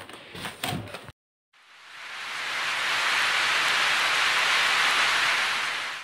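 A few handling clicks in the first second, then a cut to a moment of silence, after which a steady rain-like hiss fades in and holds: a noise sound effect laid over the end screen.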